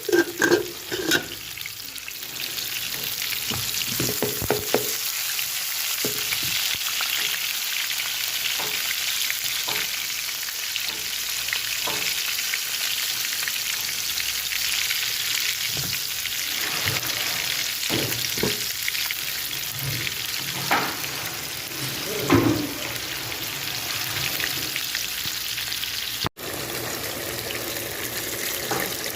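Pieces of katla fish frying in hot oil: a steady sizzle, with occasional knocks and scrapes of a spatula against the pan.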